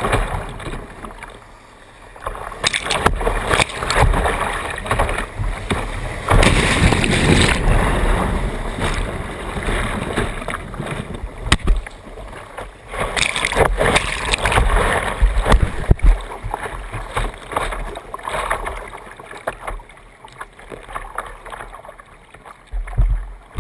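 Whitewater rapids rushing and splashing over the bow of a kayak, with surges of spray hitting a bow-mounted camera. Near the end it dies down to the quieter lap of calm water.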